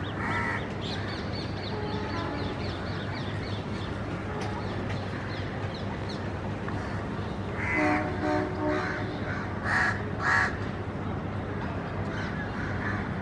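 Crows cawing: a run of calls about eight seconds in and two loud caws close together near ten seconds, over a steady low hum. Faint high chirps from smaller birds repeat in the first few seconds.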